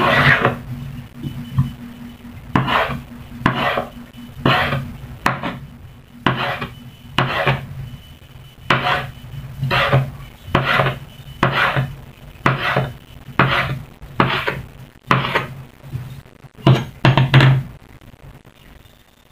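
Kitchen knife slicing a hotdog and knocking on a wooden cutting board, about one cut a second, stopping shortly before the end. A steady low hum runs underneath.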